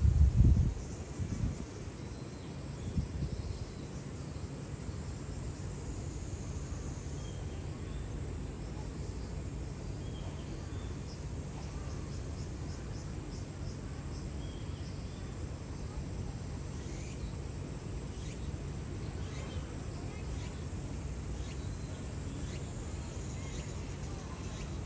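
Outdoor ambience of faint insect chirring over a steady low hum, with a brief low rumble in the first second and a smaller one around three seconds in.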